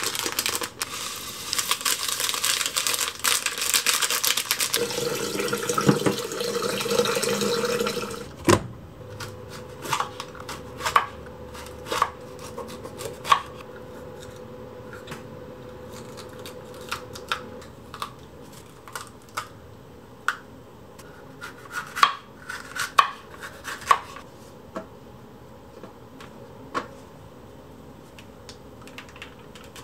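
A loud rustling hiss for about the first eight seconds, from the plastic packet of mixed-grain rice being handled over the rice cooker. It ends in a sharp knock. Then a kitchen knife cuts green bell peppers on a wooden cutting board, with scattered single sharp knocks of the blade striking the board.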